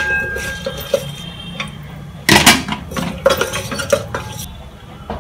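Wooden spatula knocking against and scraping around the metal inner pot of an electric cooker while stirring whole spices in oil. A sharp knock with a brief ring at the start, then a run of clattering scrapes from about two to four and a half seconds in.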